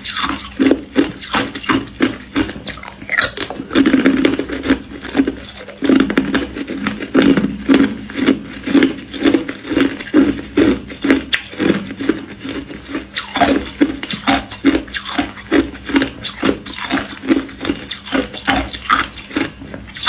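Close-miked chewing of thin, crisp ice: crackling crunches in a steady rhythm of about two chews a second.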